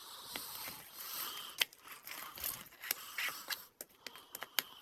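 Slime being mixed and scraped around its container after soda is added: a scraping, crinkly hiss broken by small irregular clicks.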